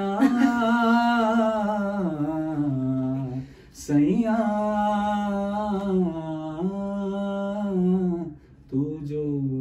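A group of voices singing a slow Hindi song together in long held notes: two long phrases with a brief break for breath about three and a half seconds in, and a third phrase starting near the end.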